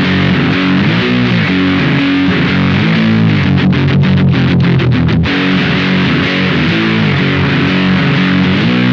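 Electric guitar played through a Velouria FX Witchcraft distortion/preamp pedal, ringing heavily distorted chords with sliding notes. Midway through comes a quick run of short, choppy stops before the chords ring on again.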